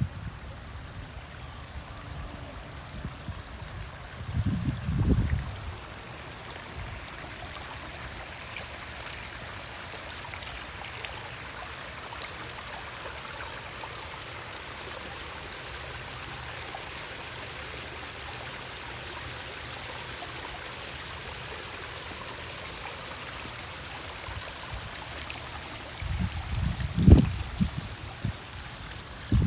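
Water running steadily down a small pondless garden waterfall and stream, an even trickling rush. Low rumbles break in about four seconds in and again near the end.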